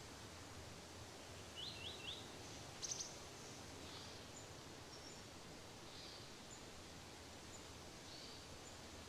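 Small birds chirping over a faint steady outdoor hiss. Three quick chirps come about two seconds in, then a louder burst of high chirps, followed by scattered faint high notes.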